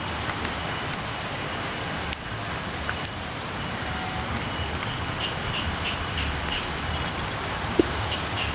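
Steady outdoor noise with an uneven low rumble, and a run of short, evenly spaced high chirps about five to seven seconds in.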